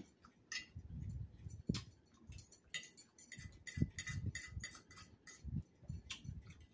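Close-up eating sounds: chewing a crunchy salad, with repeated low mouth sounds and frequent sharp crunches or clicks of a fork against a plate.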